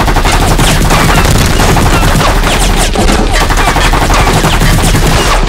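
Sustained automatic gunfire, several guns firing together in a loud, rapid, unbroken barrage.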